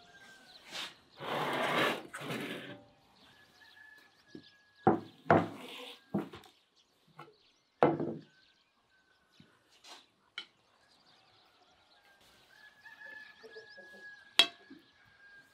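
Metal kebab skewers knocking and scraping on a wooden cutting board as grilled lamb pieces are slid off them. A scraping rush comes about a second in, then several sharp separate knocks, the last and sharpest near the end.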